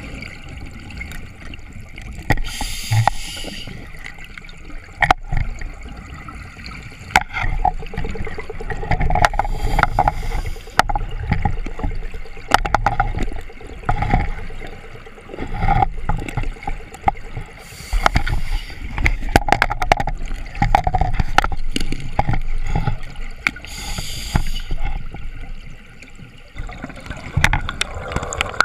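Open-circuit scuba breathing heard underwater. A short hiss of inhalation through the regulator comes every six or seven seconds, each followed by the bubbling rumble of exhaled air, with scattered clicks throughout.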